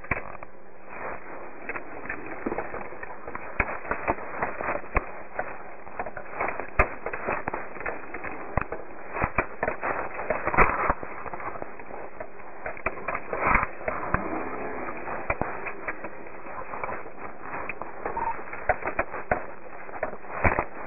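Crackling and scattered sharp pops over a steady hiss, picked up by a police dash-camera microphone; the loudest pops fall about halfway through.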